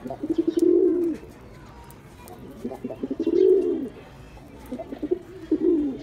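Pigeon cooing: three low coos, each a few short stuttering notes running into a longer drawn-out note, about one every two and a half seconds.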